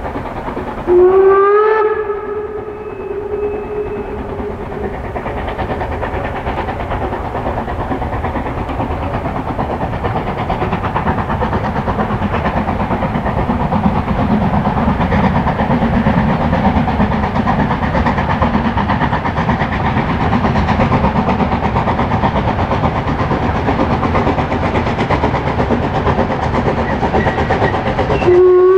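Narrow-gauge steam locomotive sounding its whistle about a second in, one note that rises slightly in pitch and fades out after a few seconds. Then the steam train runs steadily, growing louder toward the middle, and the whistle sounds again at the very end.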